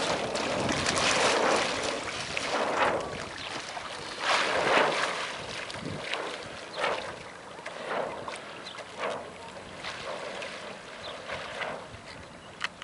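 Shallow water splashing and sloshing in uneven surges every second or two, with wind on the microphone.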